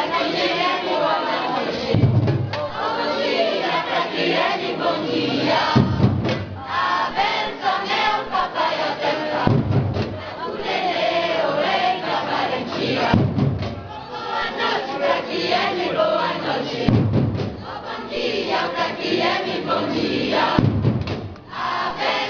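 A group singing an Afro-Brazilian capoeira-style song over percussion, with a deep drum hit landing about every three to four seconds.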